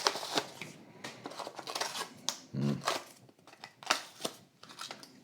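A Hot Wheels car's plastic blister and cardboard packaging being opened by hand: an irregular run of sharp crackles, clicks and snaps from the stiff plastic and card.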